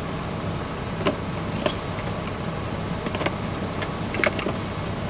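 Small spice containers being handled and set down among others: a few light clicks and clatters, over the steady hiss of chicken sizzling in a skillet and a low, steady hum.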